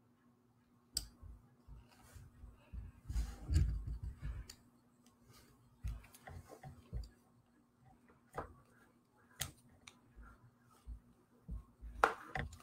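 Scattered clicks and low knocks at irregular intervals over a faint steady hum. The loudest is a cluster of thumps about three and a half seconds in, and there is a sharp click near the end.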